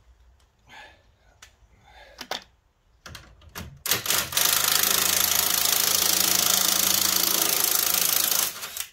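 Cordless impact wrench hammering on a nut at a car's front suspension strut, a fast steady rattle for about five seconds starting about four seconds in. Before it, a few faint clicks of handling.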